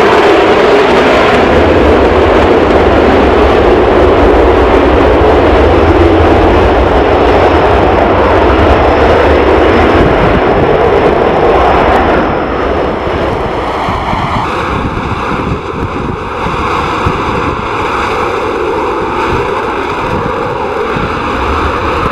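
Jet noise from a Panavia Tornado's twin turbofan engines, loud and steady, then dropping off about twelve seconds in and carrying on more faintly as the jet moves away.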